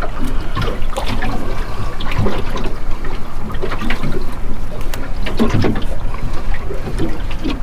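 Water lapping and trickling around a small boat, with scattered small knocks and clicks.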